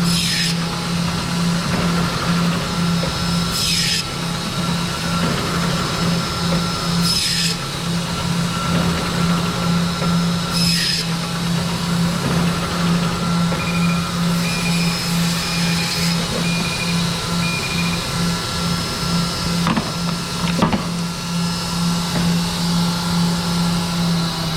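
Automatic band saw running with a steady motor hum, the blade sawing through bone-in beef short rib in a cut about every three and a half seconds, four times in the first half. A short run of high beeps comes in the middle, and two sharp clicks come near the end.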